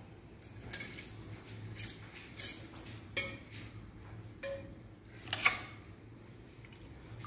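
Steel spoon clinking and scraping against a steel bowl and a steel mixer jar as soaked rice and urad dal are scooped across, with half a dozen short ringing clinks, the loudest about five and a half seconds in.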